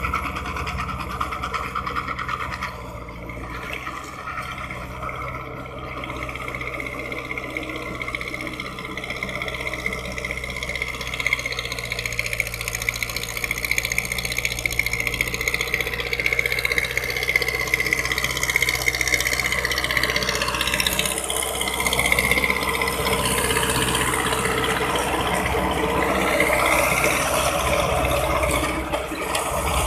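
Powertrac 4455 BT Plus tractor's diesel engine running steadily under load while driving a rotavator through dry soil. It grows louder and noisier in the second half, as the rotavator's spinning blades churning the earth come close.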